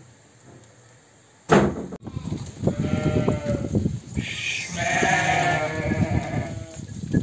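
Sheep bleating in a crowded pen, several overlapping calls over a constant shuffle, starting suddenly about a second and a half in.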